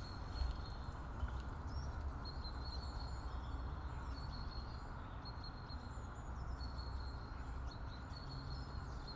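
Quiet park ambience picked up by a Comica CVM-VM10 II video microphone in a self-noise (silence) test: birds chirping faintly over a steady low rumble.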